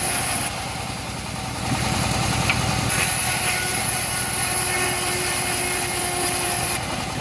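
Engine of a homemade bandsaw sawmill running steadily, with a fast, even low pulsing.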